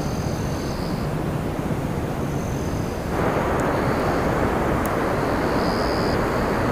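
Wind blowing on a hilltop, rushing over the microphone as a steady rumble that suddenly grows louder and fuller about three seconds in. Faint high, thin calls come and go above it.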